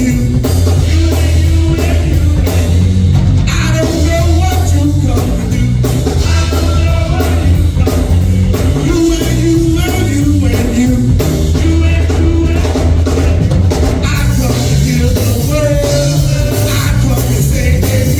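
Church worship music: singing over a live band with a drum kit and a heavy bass line, steady and loud throughout.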